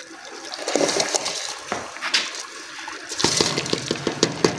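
Soaked rice and its soaking water pouring from a plastic bowl into a pot of milk, a splashing pour, with a quick patter of small clicks over the last second or so.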